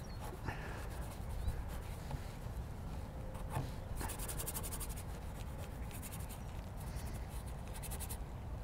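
Oil-paint brush scratching and rubbing across a painting panel in quick strokes, with clusters of fast scratchy strokes about halfway through and again near the end. Wind rumbles on the microphone underneath.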